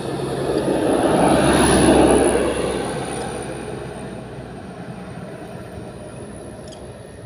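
A motor vehicle passing by: engine and road noise that swells to its loudest about two seconds in, then fades away steadily.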